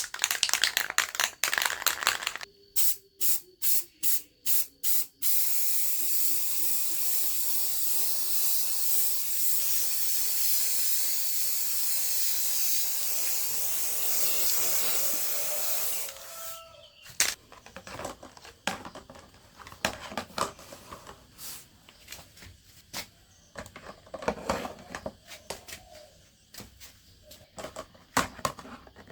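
Aerosol spray paint can: a rattle, then several short spray bursts, then one steady spray lasting about ten seconds. Scattered clicks and knocks follow near the end.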